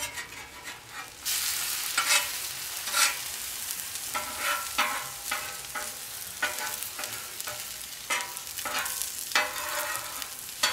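Eggs and pancakes sizzling on a hot flat-top griddle, the sizzle growing louder about a second in. A metal spatula scrapes and taps across the griddle plate again and again throughout.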